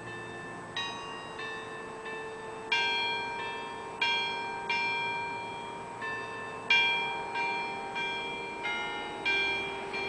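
Church bells ringing a peal: several bells of different pitch struck in turn, about three strikes every two seconds, each note ringing on and dying away under the next.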